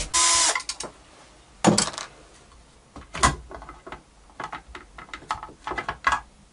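Parts of a taken-apart Bosch circular saw being handled on a workbench: a short loud rasp at the start, a sharp knock just under two seconds in and another just after three, then a run of lighter clicks and taps of plastic pieces.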